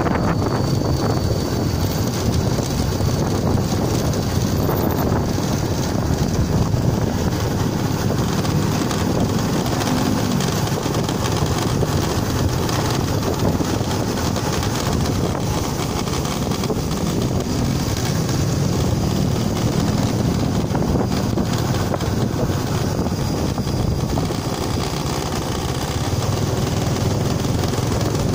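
Steady wind rush buffeting the microphone of a vehicle moving along a road, over a low rumble of the vehicle's running and its tyres on the road.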